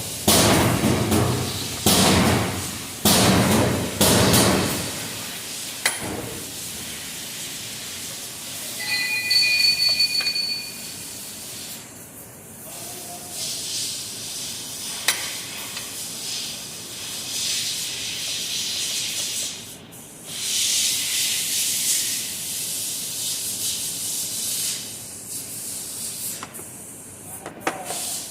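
Tool clatter and sharp knocks for the first few seconds, then compressed air hissing in long spells, blowing out the spark plug wells of a car engine while the plugs are removed.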